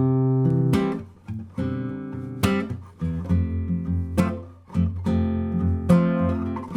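Background music: guitar chords strummed one after another, each ringing and fading before the next.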